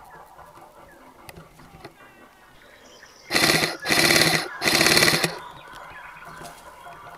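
D-Boys SCAR airsoft electric gun firing three short full-auto bursts back to back, starting about three seconds in, each a rapid rattle of shots lasting about half a second.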